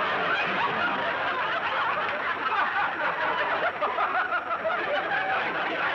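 Audience laughing steadily at a comedy beat, many voices chuckling and laughing together.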